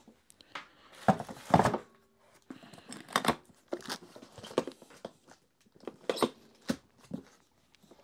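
Plastic handling noises as the motor head of a Makita DVC150L vacuum is lowered onto its tank and pressed into place: irregular knocks and scrapes, loudest about a second and a half in, with the crinkle of the plastic bag at the rim.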